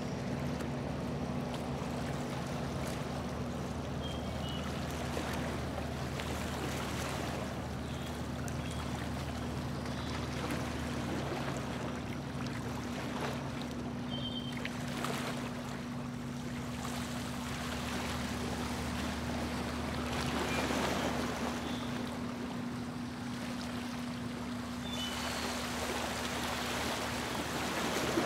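Boat motor running at a steady cruising hum, with water rushing and splashing along the hull as the boat moves through calm water.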